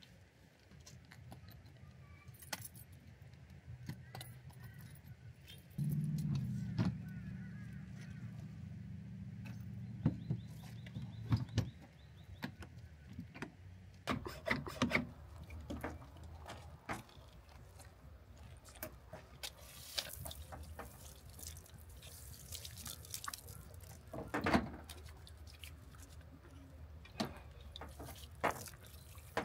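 Clinks, rattles and knocks as gear is handled at the back of a pickup truck's bed canopy. Before them a low steady hum runs, growing louder about six seconds in and dying away before the halfway mark.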